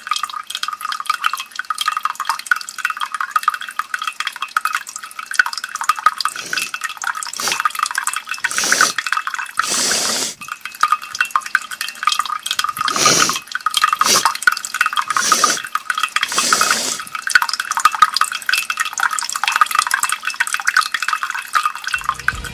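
A gushing, splattering liquid sound effect for blood spraying from an eye: a dense wet crackle with a dozen or so stronger splashy surges.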